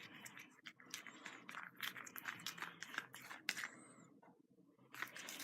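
Faint, irregular sticky clicking and squelching of a glue slime mixture being stirred after contact lens solution was poured in; the slime has not yet activated. The sounds stop about three and a half seconds in.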